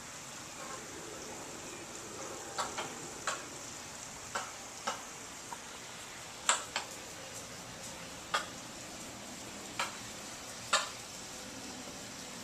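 Peafowl pecking at feed: about a dozen sharp, irregular taps over a steady hiss.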